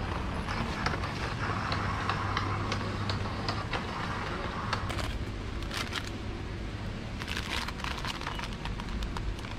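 Supermarket aisle ambience: a steady low hum and hiss, with scattered clicks and rustles.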